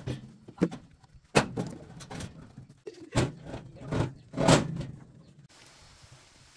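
A series of about five sharp knocks at irregular intervals, the loudest two close together around four seconds in, then quieter for the last second.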